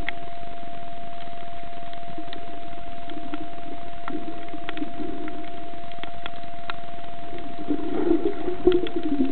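Muffled underwater noise picked up by a submerged camera: a steady high hum with scattered sharp clicks and a low murmur of moving water that swells near the end.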